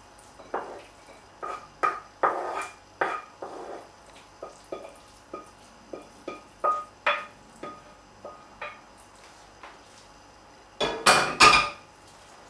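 A spoon scraping and knocking against a frying pan as risotto is spooned onto a plate, in a string of short clinks and scrapes. About eleven seconds in, the pan is set down on the gas hob's grate with a louder clatter.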